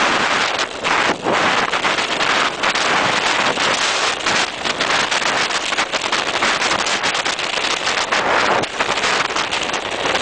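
Mountain bike ridden fast over a gravel track: tyre crunch and frequent knocks and rattles from the bike over bumps, mixed with wind buffeting the microphone.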